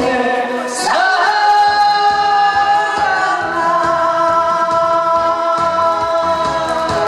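Singing over backing music: a long note held for about six seconds, ending a song.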